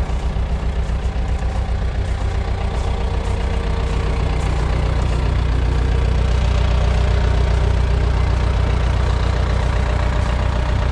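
Cat skid steer's turbo diesel engine idling steadily close by, a low even running note with no revving.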